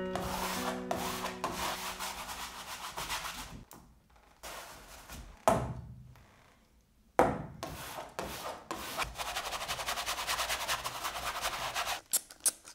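Wide paintbrush scrubbing acrylic paint onto a stretched canvas in bursts of quick, rough strokes. The longest and fastest run of strokes comes in the second half, ending with a few small clicks.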